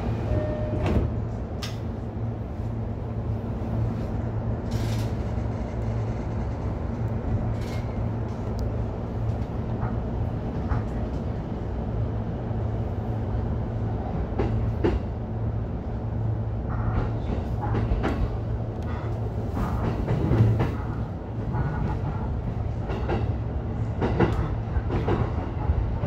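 E233-1000 series electric commuter train running along the track, heard from its front car: a steady low hum under the floor, with scattered sharp clicks and knocks from the wheels on the rail.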